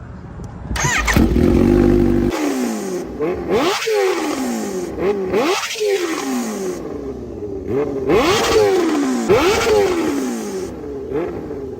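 Kawasaki Ninja H2's supercharged inline-four being revved hard while stationary: a sudden loud start and a briefly held high note, then repeated blips with engine speed climbing and falling about once a second.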